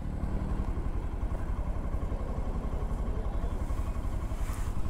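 Motorcycle engine idling with a steady, even low throb.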